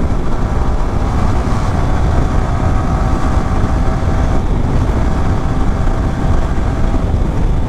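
Motorcycle at highway speed, around 100 km/h, heard through a foam-wrapped lavalier mic inside a closed helmet: a steady heavy rumble of wind and road noise with a faint, steady engine drone.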